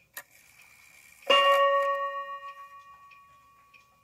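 Spiegel 31-day wall clock striking once: a click, then about a second in a single hammer blow on its chime rod that rings out in several tones and fades away over about two and a half seconds, with the movement's light ticking underneath.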